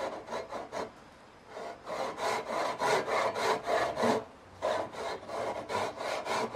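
Japanese pull saw crosscutting a tenon shoulder in a wooden block by hand: quick, even rasping strokes, about three a second, with two brief pauses.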